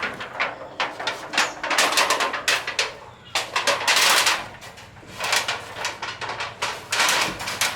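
Corrugated tin roofing sheets being handled on a roof: irregular clattering knocks and longer scraping rattles of the metal sheets.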